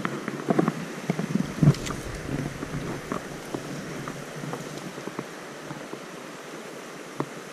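Shallow rocky stream flowing steadily, with rustles and knocks from hands and sleeves working a fly rod and line close to the microphone, busiest in the first few seconds; the loudest is a thump a little under two seconds in.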